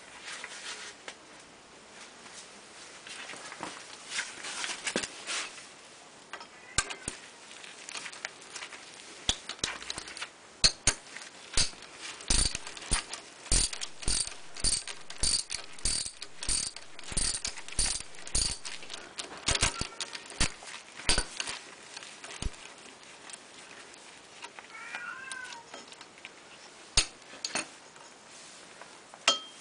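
Socket wrench on a long extension working the ignition coil mounting bolts of a Shindaiwa EGW151MS engine welder: a run of sharp metallic clicks, regular at about one and a half a second through the middle, with scattered clicks before and after. A few faint high squeaks come near the end.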